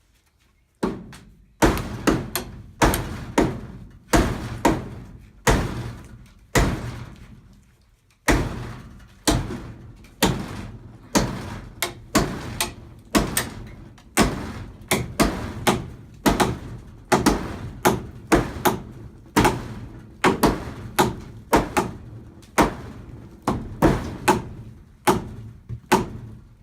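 Steady hammer blows on wood, about two strikes a second, each a sharp knock that dies away quickly. There is a brief pause about eight seconds in, then the hammering resumes.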